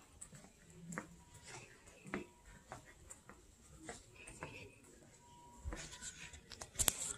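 Footsteps on a hard corridor floor at an even walking pace, one step a little more often than every half second, with a louder knock and rustle near the end.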